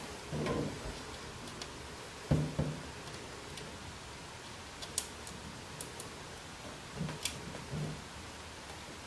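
Small screws and metal parts handled and tried against a computer case while the right power-supply screws are sought: scattered light metallic clicks and ticks, with a few soft low thuds.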